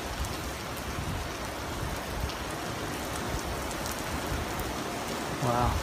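Steady rain falling, a fairly even hiss of pattering drops.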